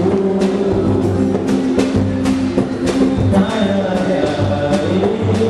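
Live pagode band playing, with a bass line, held chords and a steady drum beat.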